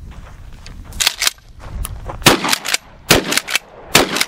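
GForce Arms 12-gauge pump-action shotgun fired in a quick string of shots less than a second apart. Between the shots come the double clack of the pump slide being worked back and forward.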